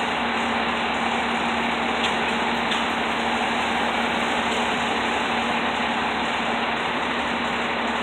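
Fire department tower ladder truck's diesel engine idling steadily, a constant hum under street noise.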